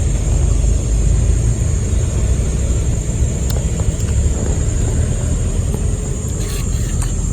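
A steady low rumble with a constant high-pitched drone above it, and a few faint clicks near the end.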